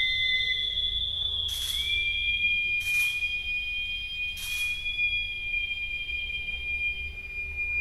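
Two small duct flutes (flautas de pico) each holding one long high whistle-like note together, the two notes clashing close to each other; the lower note steps up in pitch a little under two seconds in. Three short breathy hisses cut across the notes, about a second and a half apart.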